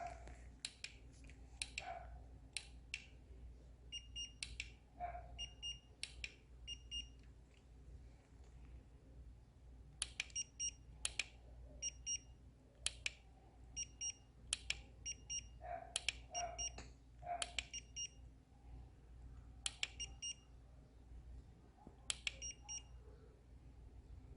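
Short high electronic beeps, mostly in quick groups of two or three, repeating every second or so among irregular sharp clicks.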